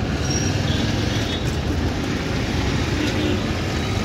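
Steady road-traffic noise: cars and scooters running past with a dense low engine and tyre rumble.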